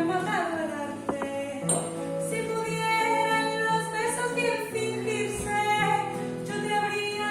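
Live acoustic music: a woman's voice singing held, wavering notes over an acoustic guitar.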